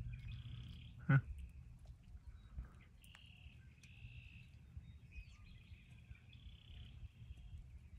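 Distant animal calls: short high trills, each about half a second, repeating every second or so, over a steady low rumble of wind. A single brief thump sounds about a second in.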